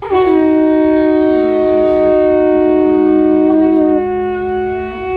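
A long wooden trumpet blown in one long sustained call lasting about five seconds, rich in overtones, its lower notes stepping down twice partway through.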